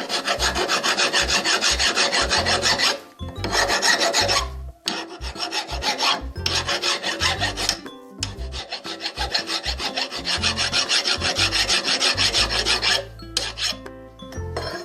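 Hand filing or sanding on a brake part: quick rasping back-and-forth strokes, about four a second, in several runs with short pauses.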